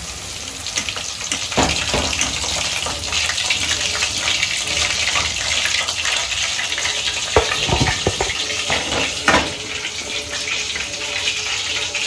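Chicken kabab pieces deep-frying in hot oil: a steady sizzle, broken by a few sharp clicks or knocks, the loudest about seven and nine seconds in.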